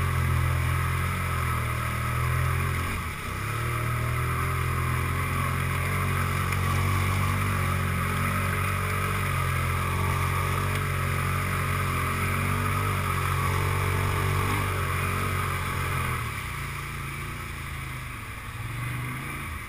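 ATV engine running steadily under throttle as the quad pushes through a flooded mud pond. The engine dips briefly about three seconds in, and eases off about three seconds before the end as the machine slows, with one short blip of throttle after that.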